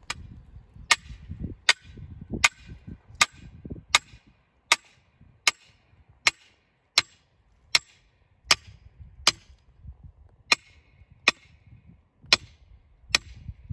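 Sledgehammer striking the top of a steel T-post, driving it into the ground: about seventeen sharp metallic clangs at a steady pace of a little more than one a second, with a brief pause about two-thirds of the way through.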